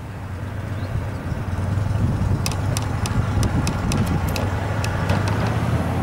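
Heritage electric tram No. 610 approaching on street track: a low rumble that grows louder over the first two seconds, then a run of sharp clicks from about two and a half seconds in.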